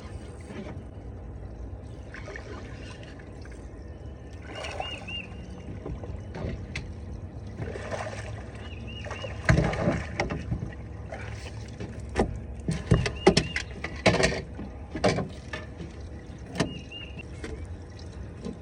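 Small fishing boat on the water: a steady low rumble with water and hull noise. A short, high three-note chirp repeats about every four seconds. In the middle of the stretch come a cluster of loud knocks and clunks.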